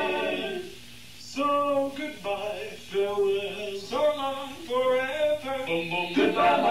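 Male voices singing unaccompanied in close harmony, in the barbershop style. A held chord ends less than a second in, there is a short breath, and then a new phrase of sung notes begins.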